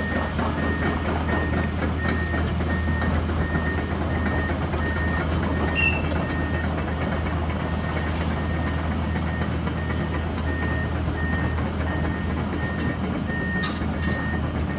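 Tracked hydraulic excavator moving off, its diesel engine running with a low, steady rumble while its travel alarm beeps steadily, about three beeps every two seconds.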